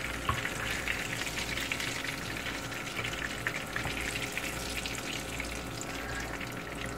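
Salmon fillets sizzling in hot oil in a nonstick frying pan: a steady crackle of many small pops.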